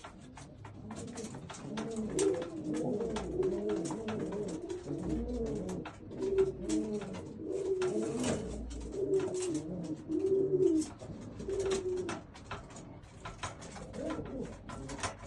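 Several Old German Owl pigeons cooing, their rising-and-falling coos overlapping, thinning out near the end. Frequent short clicks and taps run under the coos.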